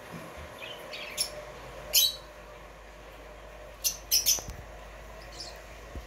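Rosy-faced lovebird giving about five short, sharp chirps: one about a second in, the loudest about two seconds in, and three close together around four seconds.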